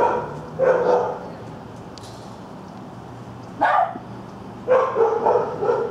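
Dogs barking: two short barks at the start, another about three and a half seconds later, then a quick run of barks near the end.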